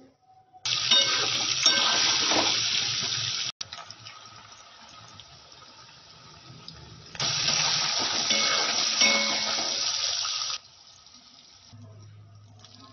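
Beaten egg frying in hot oil in a wok, sizzling loudly. The sizzle starts suddenly just under a second in and cuts off at about three and a half seconds. It goes on quieter until about seven seconds in, then comes back loud for about three seconds before cutting off suddenly again.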